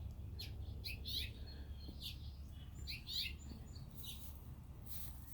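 Small birds chirping: a string of short, sharp chirps every half second or so, over a low steady rumble.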